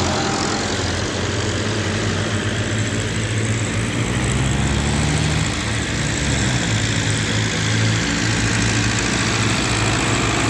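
Ford 5000 three-cylinder diesel tractor engine running steadily nearby, its pitch wavering a little partway through.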